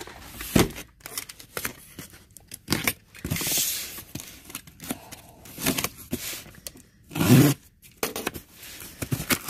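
Packing tape being pulled and torn by hand off a cardboard box's seam, in a series of short rips with the cardboard scraping, the loudest rip about seven seconds in.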